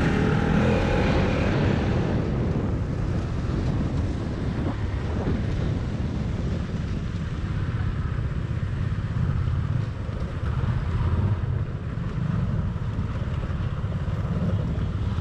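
Motorcycle being ridden, its engine under a steady low wind rumble on the rider's microphone.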